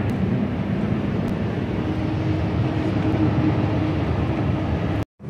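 Steady road and engine noise of a car driving along a highway, heard inside the cabin. It cuts off suddenly just before the end.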